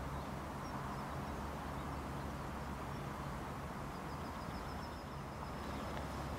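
Steady outdoor background noise with a low hum, and a faint run of high chirps about four seconds in.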